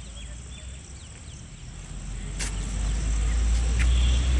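Outdoor ambience: a steady high-pitched insect chirring with faint scattered bird chirps, and a low rumble that grows louder from about halfway through.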